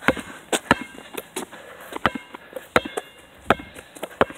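A series of irregular sharp clicks and crackles, about one or two a second, a few of them followed by a brief faint ring.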